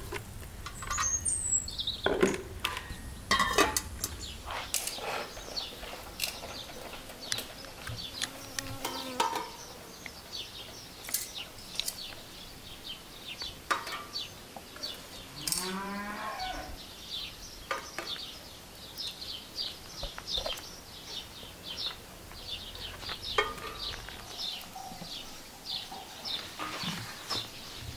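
Rural outdoor ambience: small birds chirping in quick repeated calls, a few light knocks in the first seconds, and a cow mooing once about halfway through.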